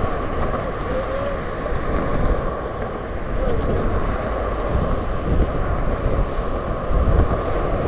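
Steady rush of road traffic passing close by, with wind buffeting the microphone.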